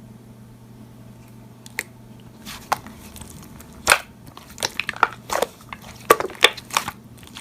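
Slime being handled and pressed, with irregular crackling clicks. It starts quietly and the clicks begin about two and a half seconds in, growing denser toward the end.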